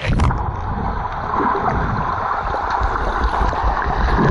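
Muffled underwater sound of a swimming pool, picked up by a Sony TX-30 compact camera held under water: a steady low rumble and churning water with the high sounds cut off, beginning abruptly as the microphone goes under.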